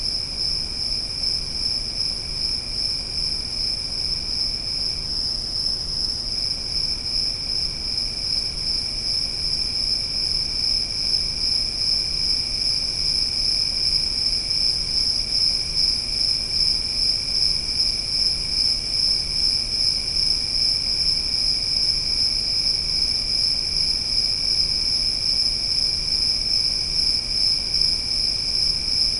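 Chorus of insects, crickets or similar, trilling steadily in one continuous high-pitched drone, with a second, lower trill that stops for about a second around five seconds in and then resumes.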